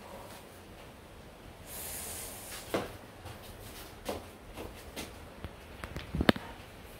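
Scattered knocks and clicks, with a short hiss about two seconds in; the loudest knock comes near the end.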